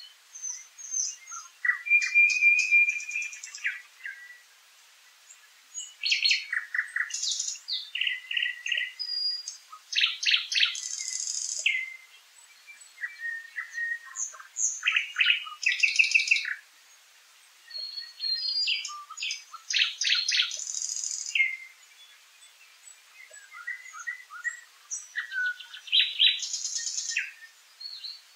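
A songbird singing loud phrases of repeated whistled and trilled notes, each a second or two long, with short pauses between them.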